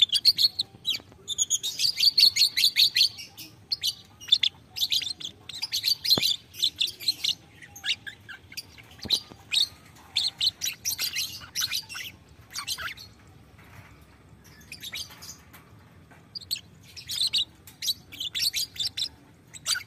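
Lovebird chattering in rapid, high twittering runs (ngekek), in several bursts with a quieter gap past the middle before it picks up again near the end.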